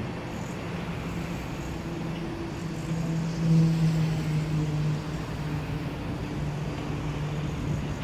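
Steady low drone of a motor engine in the distance, swelling louder about three and a half seconds in and easing off a second or so later.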